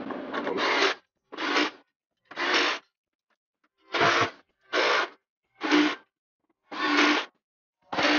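Cordless drill-driver run in about eight short bursts of roughly half a second each, driving screws tight.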